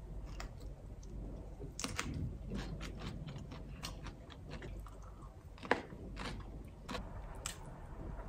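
Close-up eating sounds from someone chewing a peeled shrimp, with scattered small clicks and taps, one sharper tap a little before six seconds in.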